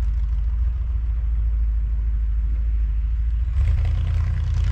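1979 Ford F250 pickup truck driving through snow, its engine making a steady low rumble. About three and a half seconds in, a broader rush of noise joins it.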